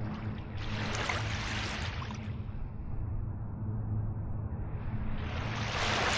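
Small sea waves washing in, one wash swelling about half a second in and fading over the next two seconds, a second one building near the end. A steady low hum runs underneath.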